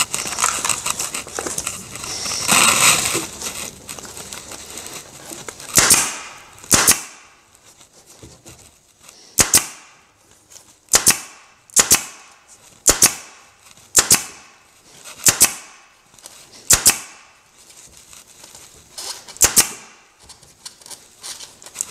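Upholstery stapler firing staples through folded-over jute webbing into an oak chair frame: about ten sharp shots, roughly a second apart, starting about six seconds in. Before the first shot, the webbing rustles as it is handled and folded.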